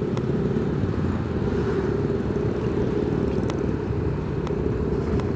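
Yamaha NMAX 155 scooter's single-cylinder engine running steadily while riding at low road speed, under a dense, even low rumble.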